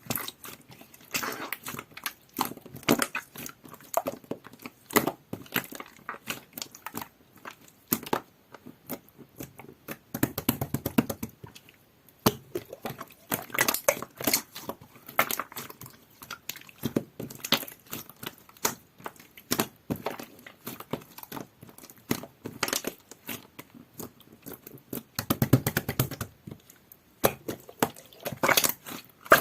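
Clear pink glitter slime with a jelly feel being squished and pressed by hand: a steady run of small sticky clicks and pops, with thicker squelching clusters about ten and twenty-five seconds in.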